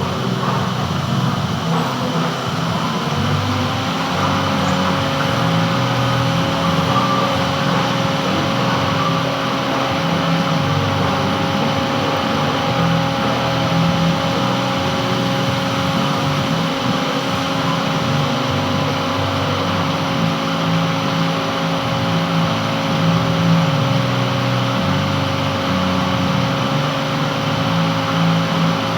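Metal lathe running steadily while a gland is turned. About three seconds in, a steady whine sets in and holds.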